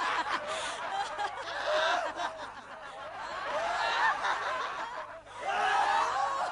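A crowd of men laughing and jeering, many voices overlapping; it dips briefly about five seconds in, then picks up again.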